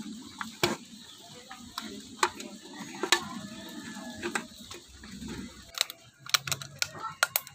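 Thin aluminium soda-can metal clicking and crinkling as a cut can is pressed and handled. A few scattered sharp clicks, then a quick run of them near the end.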